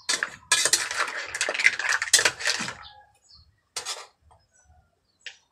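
Metal spatula and ladle stirring green mussels in a large metal wok: the utensils scrape the pan and the shells clatter against each other, busy for about the first three seconds, then one short scrape near four seconds.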